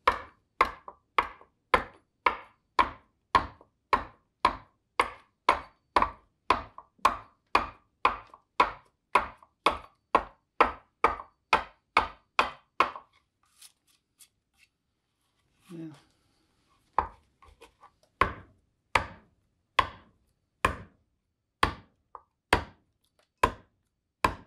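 Bowl adze chopping into a green black walnut bowl blank, a quick, even run of sharp strokes at about three a second. The strokes stop for about four seconds just past halfway, then start again at a slower pace.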